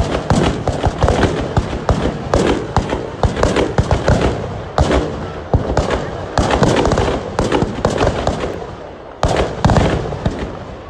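Firecrackers inside a burning Dussehra Ravana effigy going off in rapid, irregular cracks and bangs. They ease briefly near the end, then a loud burst follows.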